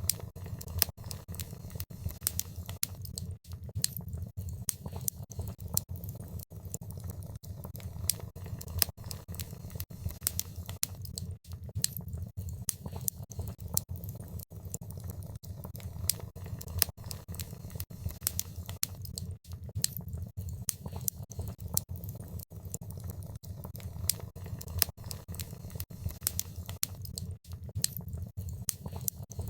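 Wood fire burning in a fireplace: dense, irregular crackling with occasional sharper pops over a steady low rumble of the flames.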